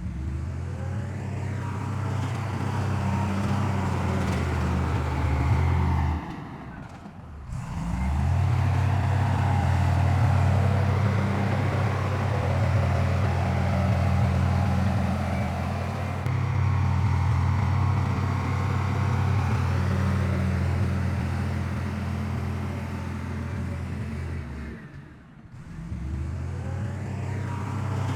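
Heavy diesel earthmoving machinery running steadily with a deep engine drone, broken by two short drops about a third of the way in and near the end.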